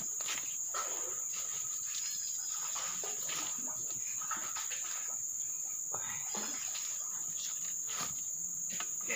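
Steady, high-pitched insect drone that runs without a break.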